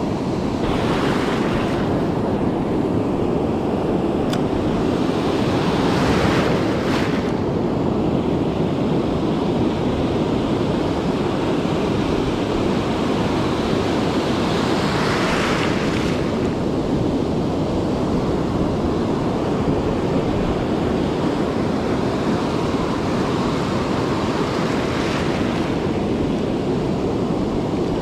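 Pacific surf breaking steadily on a sandy beach, with a wave surging up every several seconds, four times in all, over a constant wash and wind on the microphone.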